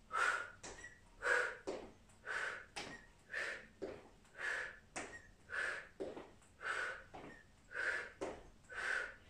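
A woman breathing out hard in regular puffs, about one a second, from the exertion of high-knee exercise in place. Light taps of sneakers on a tiled floor come between the breaths.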